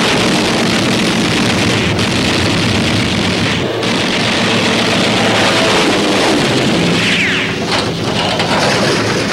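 Air-combat sound effects: the steady drone of a four-engine piston bomber under fighter attack, mixed with gunfire and explosions, with a brief sweeping whine about seven seconds in.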